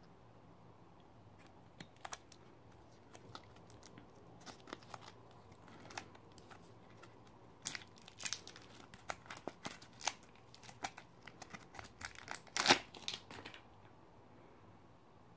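Clear plastic wrapper of an MRE beef snack strip crinkling and tearing as it is peeled open by hand: a run of sharp crackles starting about two seconds in, thickest and loudest shortly before they stop near the end.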